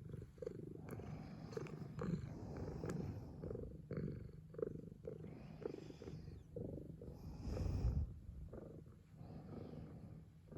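Somali cat purring steadily in a continuous low rumble, with a louder burst of noise about three-quarters of the way through.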